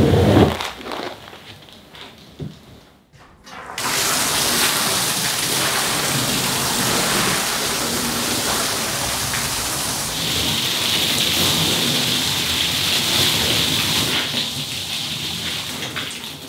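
A squeegee blade scraping suds and dirty water across a wet rug at the very start. After a short pause, about four seconds in, a strong water spray starts hissing steadily onto the rug and the wet floor liner, and it stops near the end.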